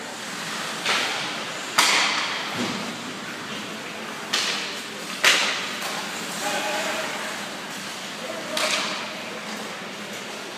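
Ice hockey play: skate blades scraping the ice in short hissing strokes, and two sharp cracks of stick and puck, about two seconds and five seconds in, with players' voices in the background.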